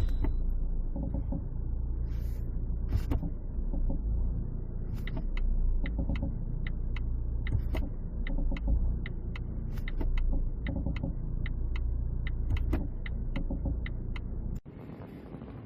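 A Volvo's engine running with a heavy low rumble and judder as it is shifted through gears, with a run of light ticks at about three a second through the middle. The 드드득 rattle on shifting is the sign of worn engine and transmission mounts due for replacement. The sound cuts off abruptly near the end.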